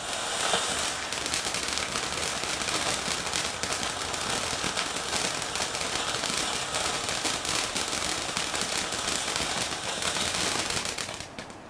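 Consumer firework crackling: a fast, dense stream of small pops for about eleven seconds, dying away just before the end.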